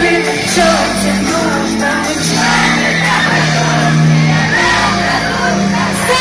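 Live pop music played loud through a festival sound system, with sustained low synth or bass notes, singing and shouted voices.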